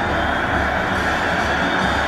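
Instrumental tail of a forró song: a dense, steady wash of sound over a regular low beat of about two to three thumps a second.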